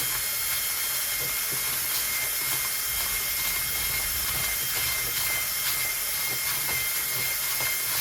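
Small power tool running steadily with a high whine and hiss, sanding down a high spot inside the bore of a Stihl MS 290 chainsaw cylinder.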